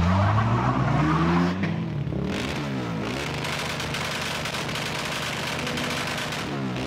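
Car engine revved through its exhaust: one rev rising and falling right at the start, then a steady idle with two quick throttle blips, about two and a half seconds in and near the end.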